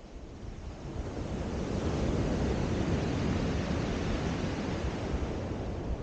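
A wave breaking on a shingle beach and washing up the pebbles, swelling about a second in and easing off toward the end, with wind rumbling on the microphone underneath.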